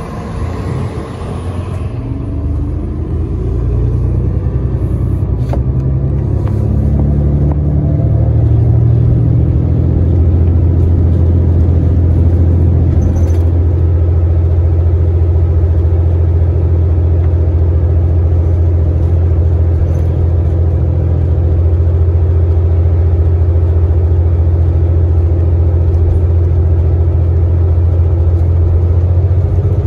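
Interior of a 2018 New Flyer XDE60 articulated diesel-electric hybrid bus pulling away: a whine rises in pitch as it gets louder over the first several seconds. It then settles into a steady low drone while cruising.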